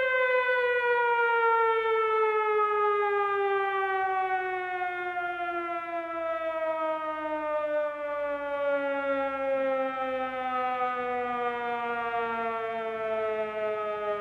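Air-raid siren winding down: one long wailing tone that falls slowly and steadily in pitch.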